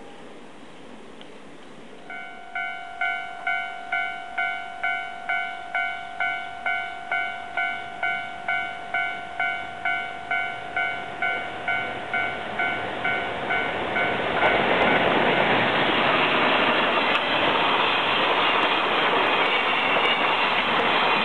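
A Japanese level-crossing warning bell starts dinging about two seconds in, about twice a second. About fourteen seconds in, a container freight train hauled by an EF510 electric locomotive reaches the crossing, and its loud, steady passing noise of wheels and wagons drowns out the bell.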